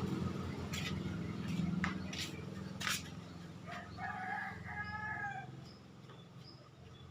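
A rooster crows once, a call of about two seconds starting near the middle, over the low hum of an engine that fades away.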